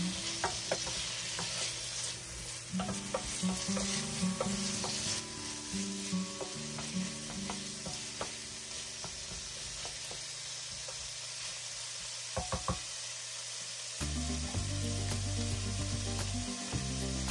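Diced bell peppers sizzling in olive oil in a nonstick pan on medium heat, a steady hiss. A wooden spoon stirs them, with light ticks and taps against the pan, mostly in the first half.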